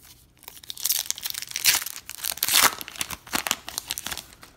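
Baseball card pack's crimped wrapper being torn open and peeled back by hand: a run of crinkling, crackling tears that begins about half a second in, is loudest in the middle and dies away near the end.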